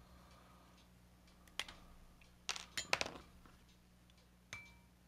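A few light clicks and taps of small metal hobby tools, tweezers and a hobby knife, being handled and set down on a cutting mat: one tap about a second and a half in, a quick cluster of clicks around the middle, and a last tap near the end with a short metallic ring.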